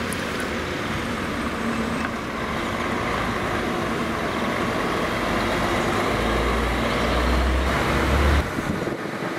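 MAN garbage truck driving by with its diesel engine running, over steady street traffic noise. A deep engine rumble swells about six seconds in and cuts off abruptly after about two seconds.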